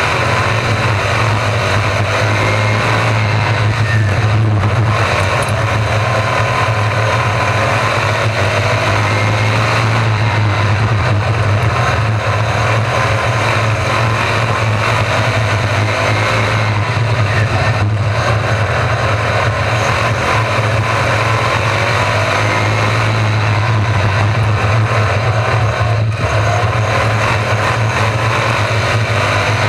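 A field of RaceSaver 305 sprint cars racing on a dirt oval. The open V8 engines rise and fall in pitch over and over as the cars lift for the turns and accelerate down the straights, over a steady low drone.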